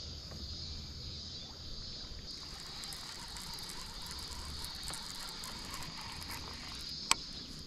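Baitcasting reel being cranked in a steady lure retrieve, a fast fine ticking of its gears that starts about two seconds in, over a steady drone of summer insects. A single sharp click comes near the end.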